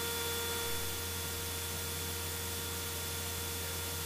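Steady hiss with a faint, even electrical whine and low hum, as on a cockpit audio line between radio and intercom transmissions.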